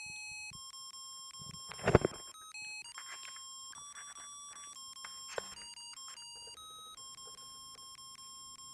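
Musical Christmas-light controller's buzzer playing a tinny electronic beeping melody, one steady note after another. A loud knock about two seconds in, with softer handling clicks and rustles over the next few seconds.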